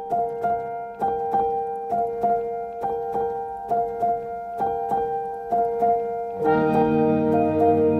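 Background music: a piano-like keyboard playing evenly paced notes about twice a second, joined about six and a half seconds in by fuller sustained chords and bass.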